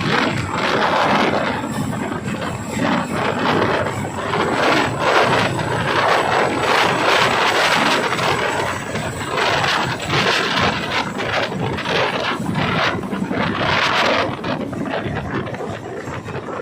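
Chinook tandem-rotor helicopter running at close range: a loud, dense rotor and engine noise with a rapid pulsing that eases off a little near the end.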